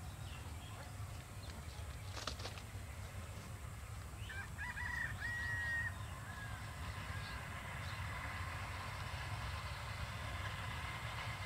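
A rooster crows once, about halfway through, over a low steady rumble.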